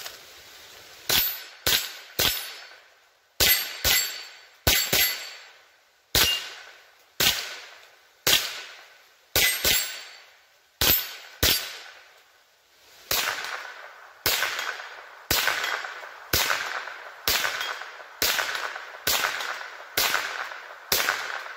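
About two dozen shots from a .22 LR semi-automatic rifle, fired one after another about a second apart, some in quick pairs. Each crack has a short ringing tail. The rifle is working through a loaded 25-round aftermarket magazine without a long stoppage.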